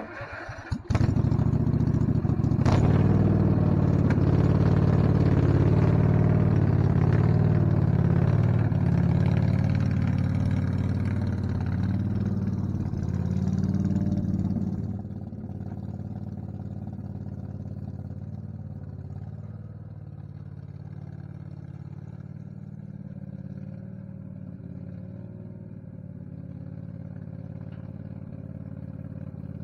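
Small engine of a yellow ride-on lawn tractor starting about a second in and running. It is loud for the first half, then drops noticeably and runs on steadily at a lower level.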